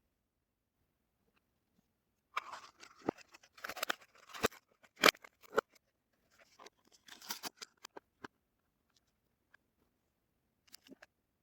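Soap packaging being unwrapped: crinkling, crackling and tearing of the wrapper with sharp clicks, starting about two seconds in and stopping after about six seconds, then a brief crackle near the end.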